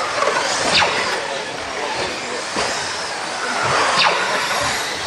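Radio-controlled rally cars racing on a track: their motors make a high whine that drops sharply in pitch as each car speeds past, about three times, over a steady hum of other cars.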